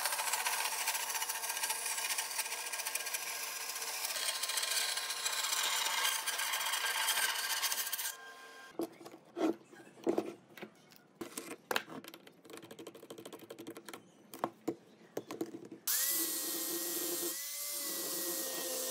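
Power tools and hand tools working wood, heard in three parts. First a steady dense machine noise, then a quieter stretch of separate knocks and scraping strokes, then about sixteen seconds in a power-tool motor starts up with a steady whine.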